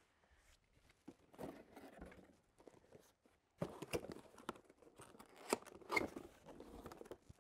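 Rear wheel of an Uppababy Vista V2 stroller being pushed onto its axle by hand: some rustling, then from about halfway a few sharp clicks and knocks as the wheel goes on.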